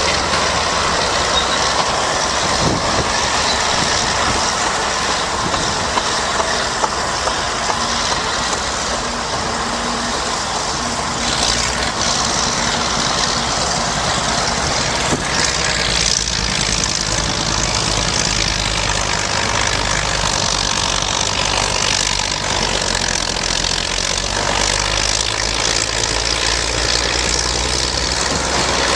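Caterpillar D8 crawler bulldozer's diesel engine running steadily under load as the dozer pushes dirt with its blade.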